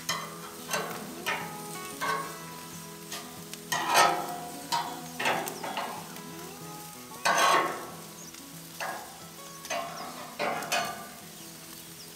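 Bacon and Russian sausages sizzling on a braai grid over hot coals, with repeated sharp clacks and scrapes of steel tongs and a spatula as the bacon rashers are turned; the loudest clatters come about four and seven and a half seconds in.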